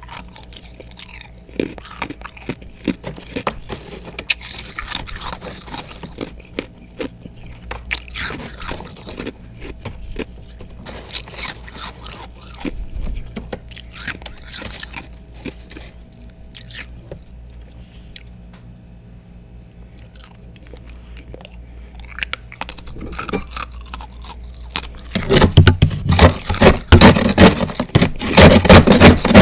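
Close-miked chewing of freezer frost and ice chunks: scattered crisp crunches, turning much louder and denser near the end.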